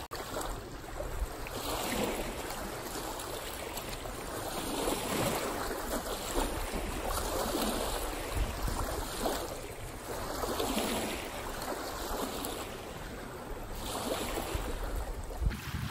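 Small river waves lapping on a sand and shell-gravel shore, washing in and easing off every couple of seconds.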